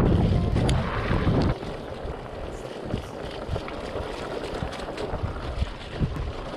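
Wind buffeting the microphone in a heavy rumble for about the first second and a half, then the steady rolling noise of a fat bike being ridden, with frequent small clicks and knocks.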